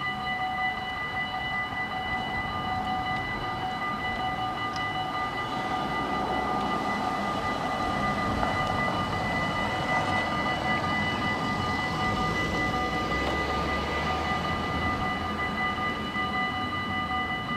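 Level-crossing warning bell ringing steadily. A train rumbles through partway in, swelling past the middle and fading toward the end.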